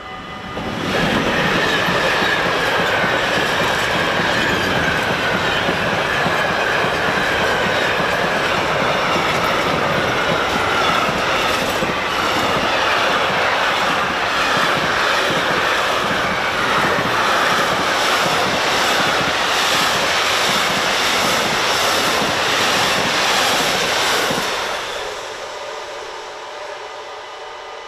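Freight train of container wagons passing fast over a level crossing, its wheels clacking in rhythm over the rail joints, with a high squealing tone that slowly falls in pitch through the first half. The train noise rises sharply about a second in and drops away after about twenty-four seconds, leaving the crossing's warning bell ringing.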